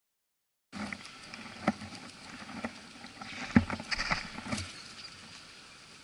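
Young rabbits nosing and bumping against an action camera right at the microphone: a string of soft knocks and clicks with rustling, the sharpest knock about three and a half seconds in.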